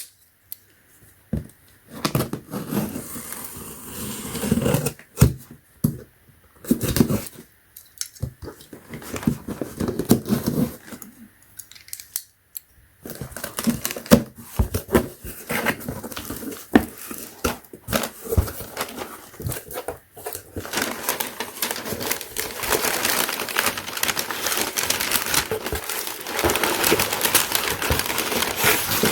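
Shipping packaging being opened by hand: cutting, tearing and crinkling, with scattered clicks and knocks. From about two-thirds of the way in, the crinkling becomes continuous.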